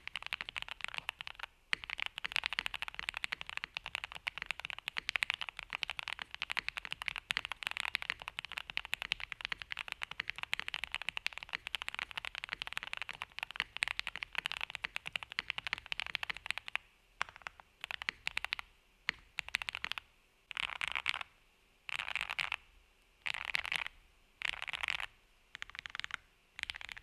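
Fast, continuous typing on a Jelly Evolv custom mechanical keyboard with lubed and filmed Gateron Oil King linear switches, foam-dampened case and PBT keycaps, giving a creamy clack. About two-thirds of the way in the typing breaks into short bursts of keystrokes with brief pauses between.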